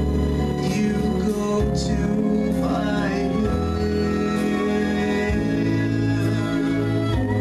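Slow ballad accompaniment with held bass notes that change every second or two under sustained keyboard chords, with a voice singing over it.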